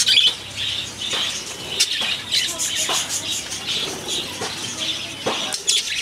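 A flock of budgerigars chattering: a steady stream of short warbling chirps, about two a second, mixed with sharp clicks, with wings fluttering now and then.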